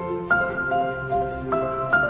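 Background music: a slow instrumental of held notes, moving to a new chord about a third of a second in and again at around one and a half seconds.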